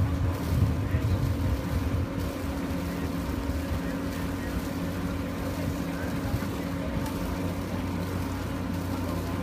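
Motorboat engine running at a steady cruise, a constant low hum; it is louder and uneven over the first two seconds, then settles.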